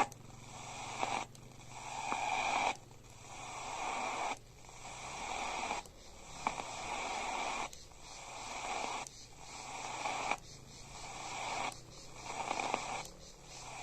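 Portable radio receiver tuned between stations on medium wave, giving hiss and interference that swells and then cuts off abruptly about every one and a half seconds, over a faint steady hum.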